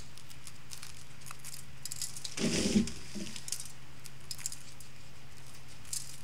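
Faint scattered ticks and light rattling of brown sugar being crumbled by hand and sprinkled onto a foil pan of cake topping, over a steady low hum, with one short louder burst about halfway through.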